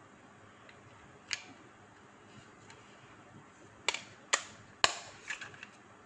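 Sharp plastic clicks from a small Essager cable-adapter storage box: one click about a second in, then three loud snaps about half a second apart near the end, followed by a few lighter clicks, as an adapter is pressed into its slot and the hinged lid is snapped shut.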